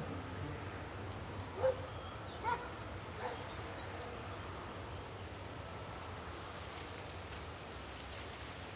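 Outdoor ambience with a steady low rumble, broken by four short animal calls in the first three and a half seconds, about one a second.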